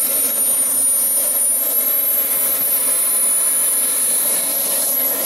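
Small turbine jet engines of a large radio-controlled model jet running steadily, a thin high-pitched whine over a constant rush of exhaust noise.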